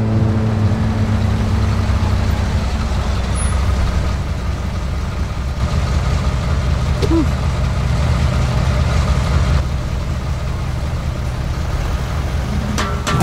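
Motor vehicle engine idling, a steady low rumble with a faint hum.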